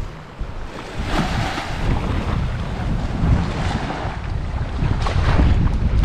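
Sea waves washing on a beach, with strong wind buffeting the microphone. The surf swells twice, about a second in and again near the end.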